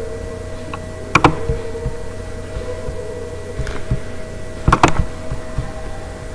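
A few sharp clicks, a pair about a second in and another two or three near five seconds, over a steady electrical hum.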